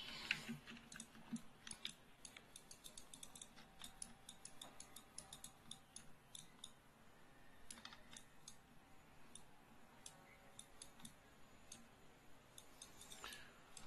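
Faint, irregular clicks of a computer mouse, many in quick succession with short pauses between, over quiet room tone.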